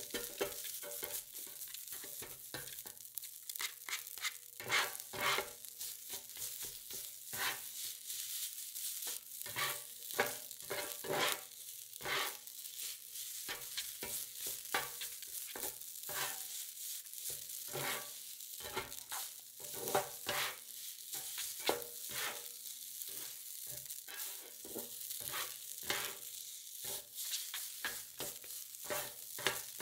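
Fried rice with garlic sizzling on a nonstick hot plate while two spatulas toss and chop it. Their edges scrape and tap on the plate irregularly, a few times a second, over a steady hiss.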